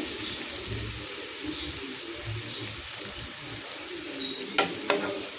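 Chopped onions, green chillies and curry leaves sizzling steadily in hot coconut oil in a frying pan as the onions sauté.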